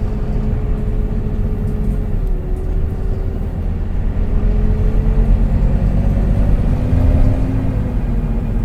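Volvo B9TL double-decker bus's diesel engine and drivetrain heard from on board: a steady low rumble with a whine that dips about two seconds in, then rises again as the bus picks up speed.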